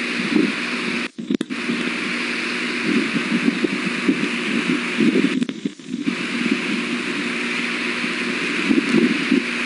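Steady wind noise on an outdoor microphone, cutting out briefly about a second in and again just past the middle.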